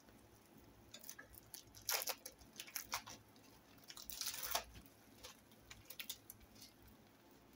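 A packet or wrapper crinkling and rustling as it is handled, in irregular bursts with light clicks, loudest about two seconds in and again for about half a second around the middle.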